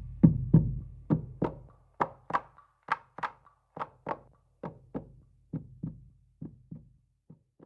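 Hand-percussion strokes in a steady two-beat pattern, about one pair a second, growing quieter until they stop: the percussion outro that ends the song.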